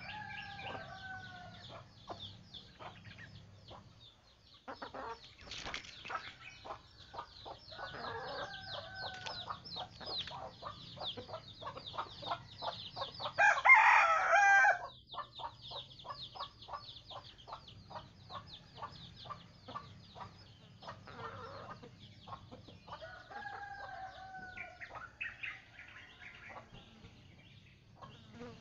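Chickens clucking and calling, with a few short calls that fall in pitch. About halfway through, one rooster crows loudly for a second or so.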